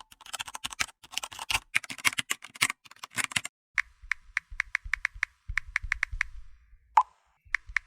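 Typing on a computer keyboard: a dense run of key clicks for about three and a half seconds, then sparser, evenly spaced clicks in quick groups with short pauses between them.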